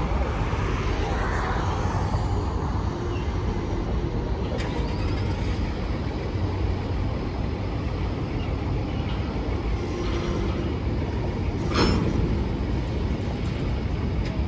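Steady low rumble of a moving vehicle, with a short click about four and a half seconds in and another near the end.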